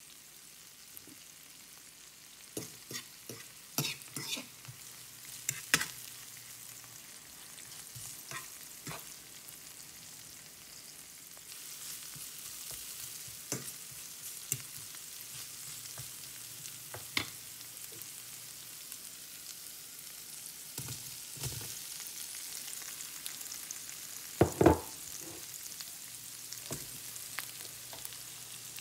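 Sliced bell peppers and onions sizzling in oil in a nonstick pan, with the scrapes and clicks of a metal slotted spatula stirring them. The sizzle grows a little louder partway through, and a few louder knocks come late on.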